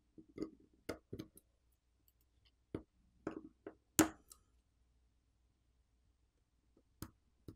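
Scattered small clicks and taps of a pry tool on a smartphone's logic board as its coaxial antenna cables are popped off their snap connectors, the sharpest click about four seconds in.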